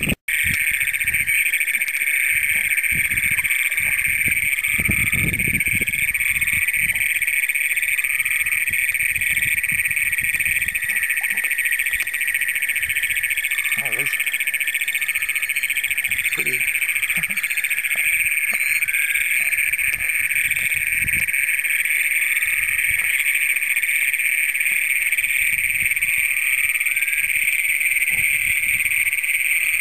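Chorus of Great Plains toads: many males giving long, harsh trills that overlap into one continuous, really loud roar, with shorter chirps repeating above it.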